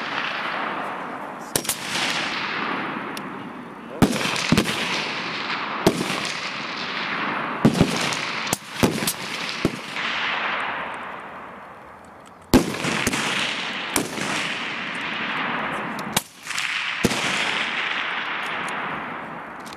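Sniper rifles firing on a range, about a dozen shots at irregular intervals, some close together. Each crack trails off in a long echo that dies away over a second or more.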